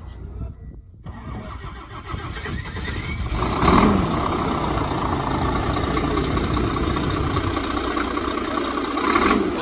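Volvo truck's diesel engine cranking, catching with a loud flare about three and a half seconds in, then running steadily, with a brief rise in level near the end.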